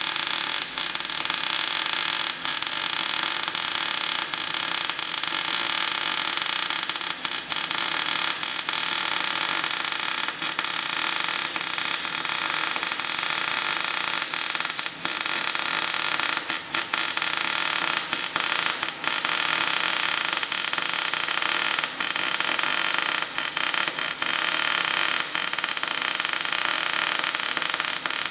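Electric arc welding on steel: the steady crackling hiss of the arc laying a bead, broken a few times by brief pauses.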